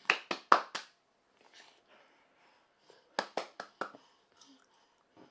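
Two quick runs of sharp hand slaps: about four within the first second, then five more about three seconds in.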